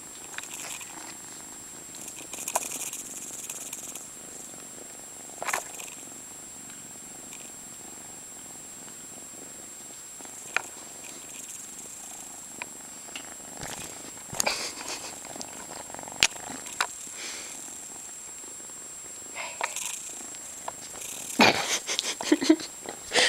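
Tabby-and-white kitten purring while being petted. Scattered clicks and rustles of handling come close to the microphone and are heaviest near the end.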